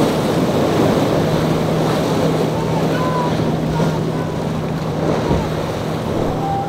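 Yamaha outboard on a center-console boat running with a steady low drone as the hull pounds through rough inlet chop, water rushing and splashing, with wind on the microphone.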